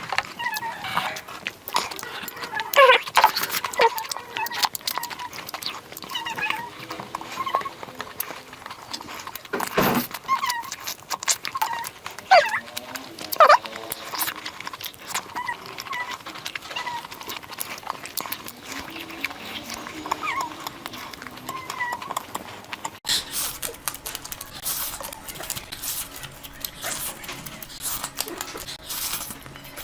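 Close-miked eating sounds: many short wet smacks, clicks and chewing noises of a person eating curry by hand. About two-thirds of the way through the sound changes abruptly to another eater.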